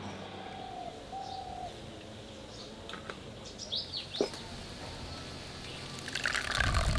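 Birds chirping in the background. Near the end, thick guava pulp is poured into a wire-mesh sieve, a loud wet splashing pour.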